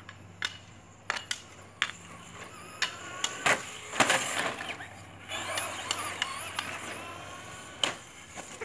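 Traxxas Slash radio-controlled truck driving hard: its motor whines up and down in pitch as it revs, with tyre noise and a string of sharp knocks as the truck bounces and lands. The loudest knocks come about four seconds in, as it tumbles on the concrete.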